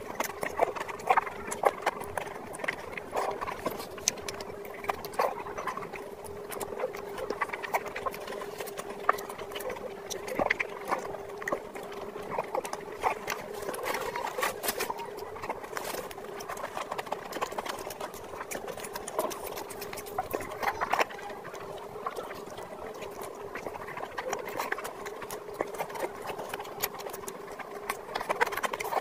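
Close-miked eating by hand: wet chewing and lip smacking with irregular clicks and squelches as curry-soaked egg and fried rice are eaten, over a faint steady hum.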